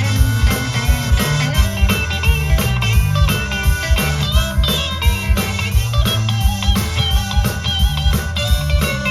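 Background music: a rock or blues band with electric guitar over a steady drum beat.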